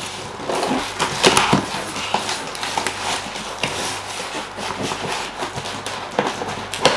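A cardboard parcel being cut and torn open by hand: scraping, tearing and rustling of cardboard and packing, with scattered clicks and knocks.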